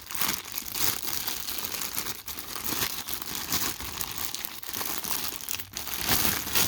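Packaging crinkling and rustling as a cordless impact driver is unwrapped by hand, a continuous crackle of small irregular crinkles.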